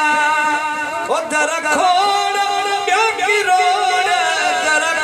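A man chanting a devotional verse a cappella into a microphone, holding long notes with ornamented turns and wavering pitch.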